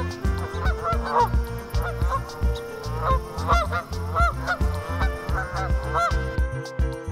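About a dozen short waterfowl calls, each rising and falling in pitch, over background music with a steady low pulsing beat.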